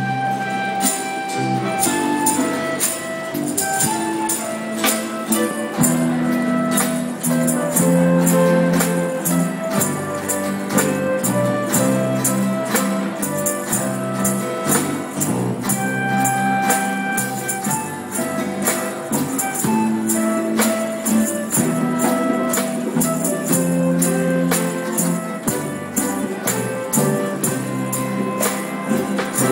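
Church folk ensemble playing an instrumental passage: a flute carrying the melody over strummed guitars and bass notes, with a jingling percussion beat like a tambourine keeping steady time.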